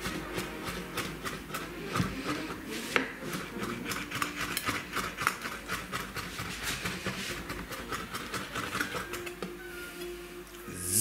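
Chef's knife chopping fresh basil on a wooden cutting board: quick blade taps against the board, about four a second, thinning out near the end.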